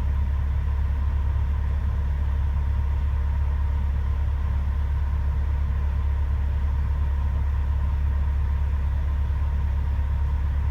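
Truck engine idling steadily at about 700 RPM, a constant low hum.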